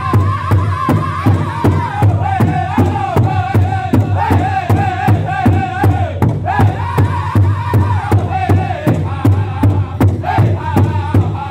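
Powwow drum group singing at a large shared drum. Several sticks strike the drum together in a steady beat of about three a second, under a chorus of high, held chanted voices whose melody steps downward. About six seconds in, a new high phrase begins.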